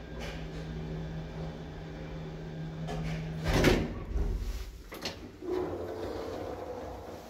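1960s Gendre Otis single-speed lift running with a steady low hum as the car travels, then stopping with a loud clunk about three and a half seconds in. A few clicks and rattles follow as the doors are released and the swing landing door is pushed open.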